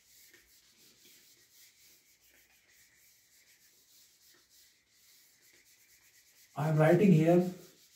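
Handheld whiteboard eraser wiping across a whiteboard: a faint, steady scratchy rubbing. Near the end a man's voice sounds loudly for about a second.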